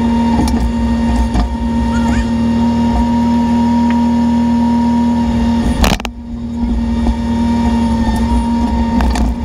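Bobcat E10 mini excavator's engine running steadily at constant speed while the machine works, with one sharp knock about six seconds in.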